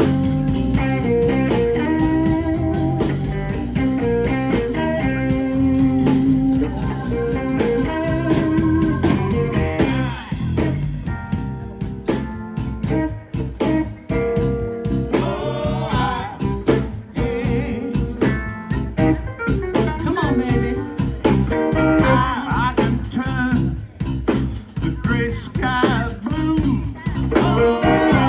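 Live blues band playing: harmonica lead over electric bass and drums, with a woman's voice singing from about ten seconds in.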